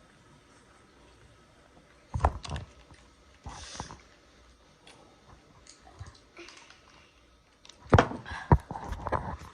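Sounds of someone eating: sharp clicks and knocks of utensils and food containers in two clusters, about two seconds in and again near the end, with a brief rustle just before the four-second mark.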